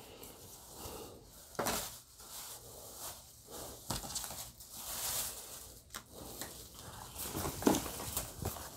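Faint rustling and handling of small items being put down and picked up, with a few light knocks, the last near the end as an item is lifted out of a plastic storage bin.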